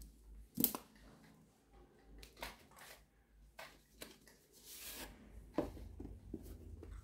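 Wristwatches being handled on a display tray: a scattering of light clicks and clinks as metal cases and bracelets knock against each other, with a brief rustle about five seconds in.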